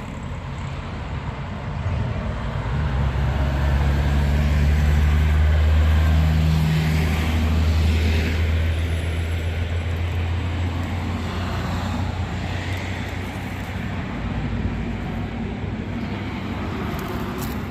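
A motor vehicle's engine running with a steady low hum, growing louder over the first few seconds and then slowly fading.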